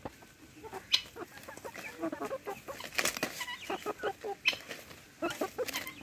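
Hens clucking in short, repeated calls while pecking at a banana leaf, with a few sharp taps and rustles of the leaf in between.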